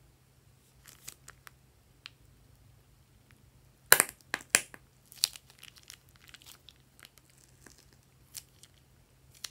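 Plastic piping bag crinkling and crackling as it is squeezed to pipe out slime, with a cluster of loud, sharp crackles about four seconds in and lighter crinkles around it.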